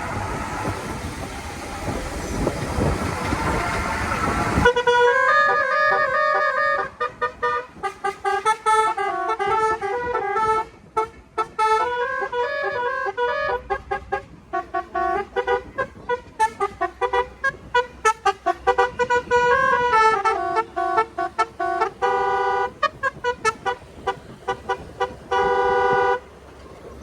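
For the first few seconds there is the noisy rush of a moving vehicle. Then a multi-tone basuri telolet horn plays a tune of clear stepping notes. It ends with a run of rapid repeated blasts on one chord.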